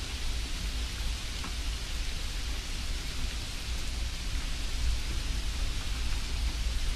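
Steady rushing noise with a strong low rumble underneath and a few faint ticks.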